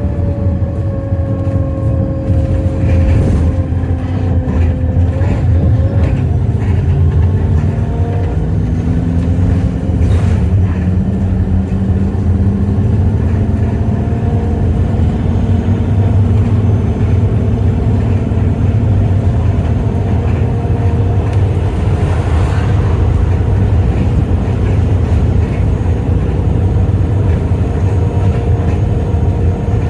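Alexander Dennis Enviro200 single-deck bus engine running with a steady low drone. Higher whining tones sit over it and slide in pitch during the first ten seconds or so, the unusual engine noises the recording sets out to capture.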